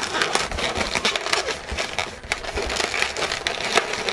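Inflated latex twisting balloons squeaking and rubbing against each other as they are twisted and pressed together, an irregular crackly run of squeaks.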